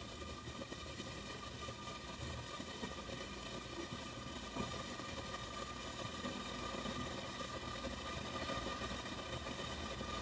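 Steady mechanical hum with several faint, even high tones running through it.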